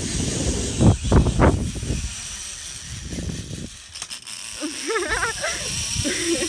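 Zip line trolley running along the cable with a steady whir and rattle, with rumbling bumps and a few knocks on the phone microphone in the first two seconds. Over the last second and a half a girl's high voice wavers up and down as she rides.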